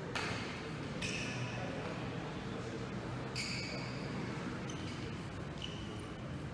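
A ball bouncing on the hard floor of a large, echoing gymnasium, several sharp, irregular bounces each with a short ringing tail, over a low murmur of voices.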